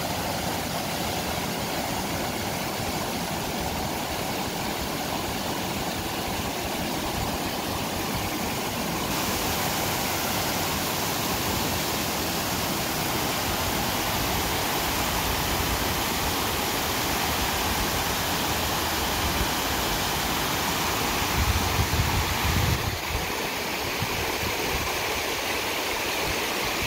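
Steady rushing of spring water spilling over low rock ledges, the sound growing brighter and fuller about nine seconds in. Near the end, a few seconds of low rumbling bumps stand out over the water.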